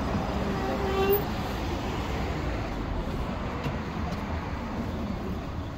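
Steady city street noise of passing traffic, with a short pitched sound about a second in.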